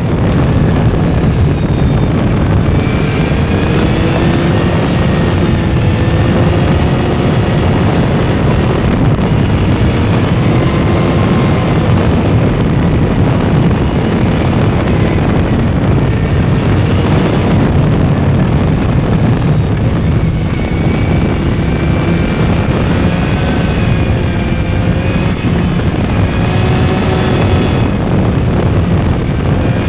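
Yamaha XSR 900's three-cylinder engine running under way, heard onboard over steady wind rush, its note rising and falling with the throttle.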